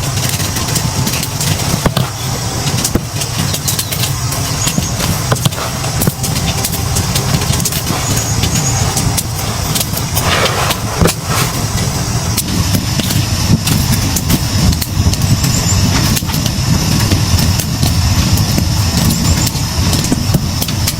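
A car running, a steady low rumble with scattered clicks and knocks throughout.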